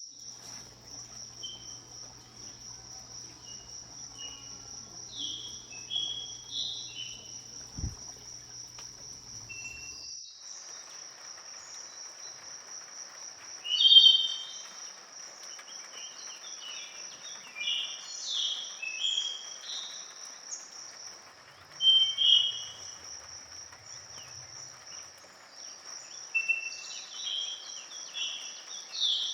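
Insects trilling steadily and high, with wild birds singing short, chirpy phrases over them; the birdsong gets busier about halfway through, with its loudest phrases about 14 and 22 seconds in.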